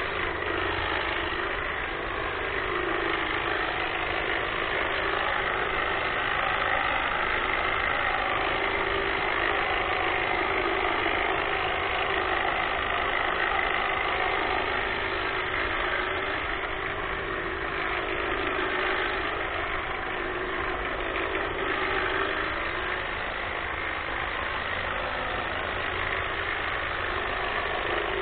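Greenworks battery-powered hedge trimmer running steadily, its reciprocating blades giving a continuous buzz with small rises and dips in level as it trims shrubs.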